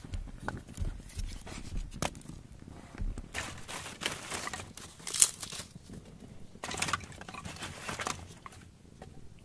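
Campfire crackling and popping, mixed with the rustle and crunch of wood being handled, with one sharp snap about five seconds in.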